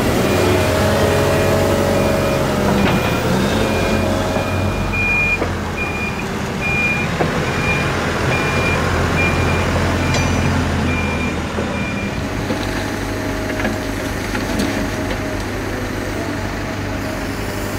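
Diesel engine of a Hydrema 912 rail dumper running as it travels along the track, with a reversing alarm beeping at a steady pace of about one and a half beeps a second. The beeping stops about two-thirds of the way through and the engine sound drops.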